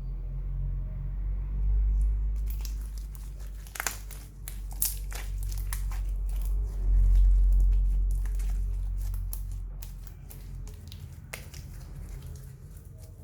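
Slime being worked by hand, giving a dense run of crackling, crinkling pops from about two seconds in, over a low rumble.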